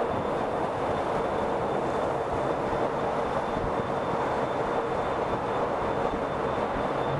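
Steady road noise of a car driving through a road tunnel: tyres and engines of the traffic making an even rush, with a faint steady high whine above it.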